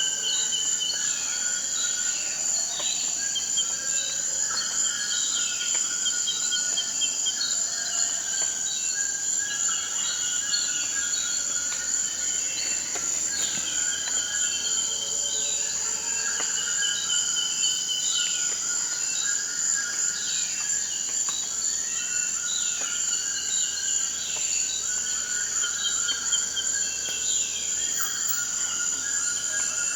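Forest ambience: a steady high-pitched insect drone, with many short chirping calls that drop in pitch repeating over it throughout.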